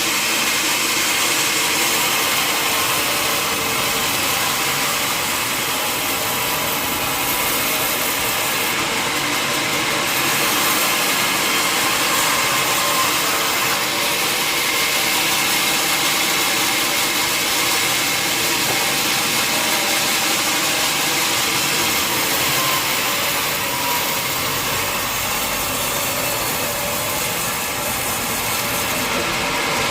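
Sawmill machinery running steadily: a loud, continuous mechanical noise with faint steady tones underneath.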